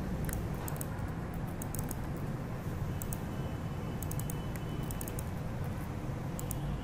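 Computer keyboard keys clicking in short irregular bursts as code is typed, over a steady low background hum.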